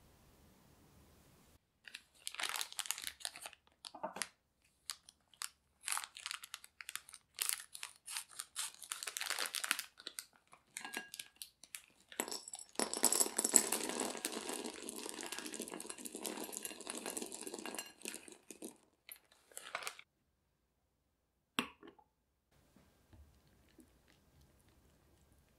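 A foil-lined bag crinkling as it is handled and opened. Then coating-chocolate pieces pour out of the bag into a glass bowl with a dense rattle lasting about five seconds. After that comes a single click, then only faint soft sounds.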